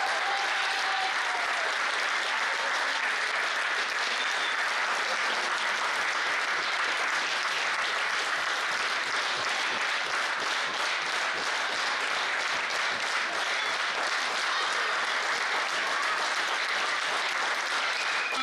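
Steady applause from a crowd of spectators clapping.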